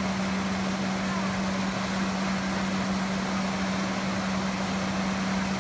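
A steady low mechanical hum, one constant tone, over an even background hiss.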